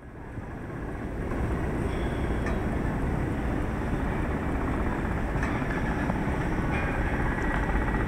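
Wind blowing across the microphone: a steady rumbling noise that fades in over about the first second and then holds.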